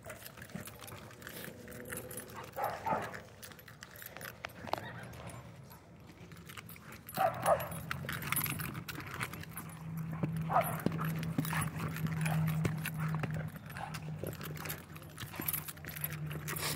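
A German Shorthaired Pointer spinning in circles with a rope toy in its mouth: paws scuffing on the dirt and collar tags jingling, with a few brief louder scuffles. A low steady hum comes in about seven seconds in and stays.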